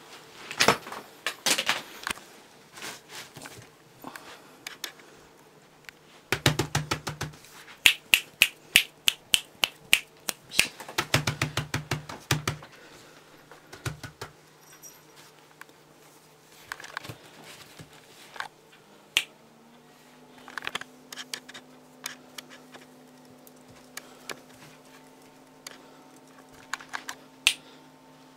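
A cat playing with a plastic stick toy: irregular sharp clicks and taps in quick clusters, busiest in the first half, then a few single clicks. A steady low hum runs underneath.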